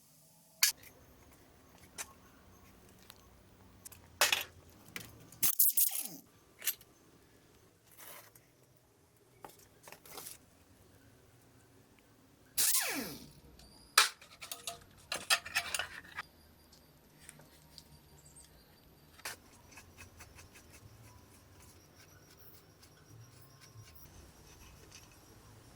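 Scattered scrapes, clicks and knocks of hand tools and metal parts being worked while taking apart an old scooter. The loudest scrapes come about four to six seconds in and again around thirteen to sixteen seconds; after that only faint, sparse ticks remain.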